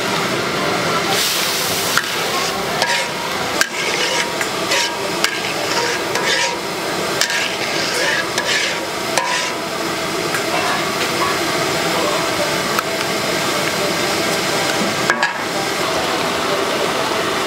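Pad thai stir-frying in a hot pan: a steady sizzle, with the cooking utensil repeatedly knocking and scraping against the metal pan.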